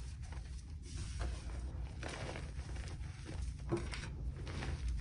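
Bare hands patting, pressing and scooping a heap of loose powder made of crushed gym chalk, cornstarch and holi powder: soft puffing, crumbly crunches about once a second, with a few sharper clicks.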